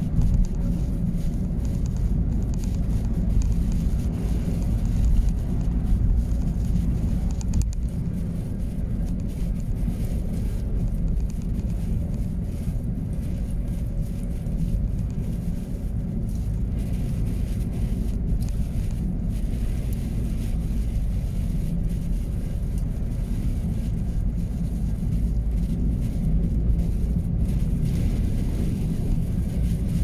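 Steady low rumble of a truck being driven, its engine and road noise heard from inside the cab.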